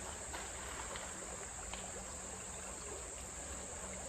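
Steady, high-pitched drone of a summer insect chorus, unbroken throughout.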